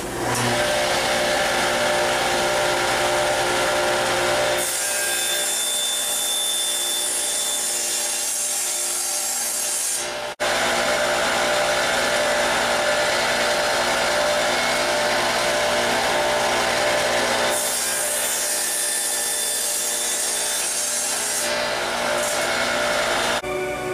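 Table saw running while wooden roof slats are crosscut to length on a crosscut sled. The sound turns to a harsher, hissing cut twice, once from about five to ten seconds in and again in the last third.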